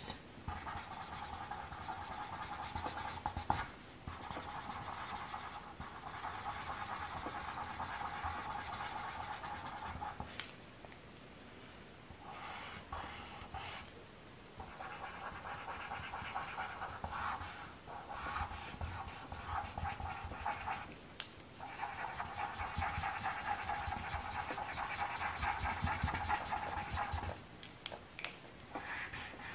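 Felt-tip marker scratching on paper in quick back-and-forth colouring strokes, in stretches broken by short pauses.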